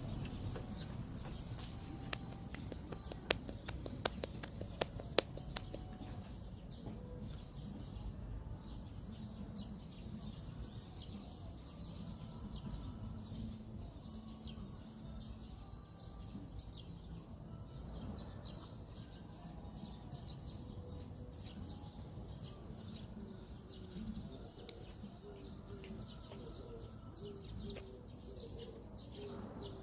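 Birds calling faintly, with a handful of sharp clicks a few seconds in and short repeated calls near the end.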